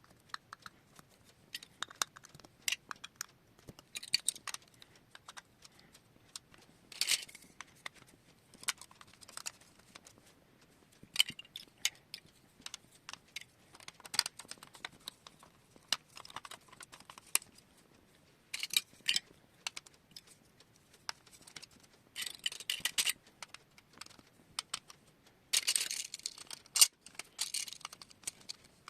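Plastic marble run set clicking and clattering in short, irregular bursts, with a longer rattling spell about 22 seconds in and another near the end.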